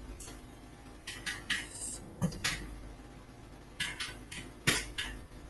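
Mechanical keyboard typing: short runs of a few sharp keystroke clicks with pauses between them.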